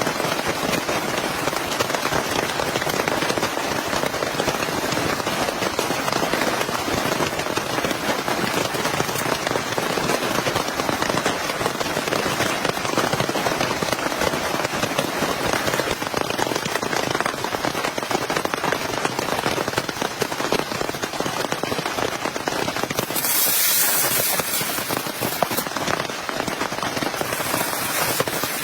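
Heavy rain falling and pattering on a surface: a dense, steady crackle of countless drops, with a brief stretch of louder, sharper hiss about three-quarters of the way through.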